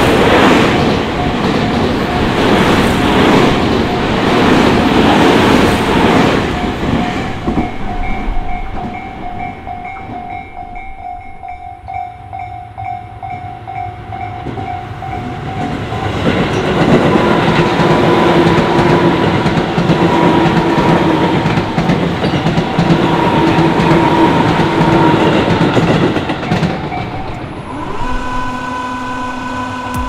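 Tobu Tojo Line electric commuter trains passing a Japanese level crossing: one train's wheel and running noise fades after about seven seconds, and a second train rumbles through from about halfway and fades near the end. The crossing's warning alarm rings steadily in the quieter stretch between them.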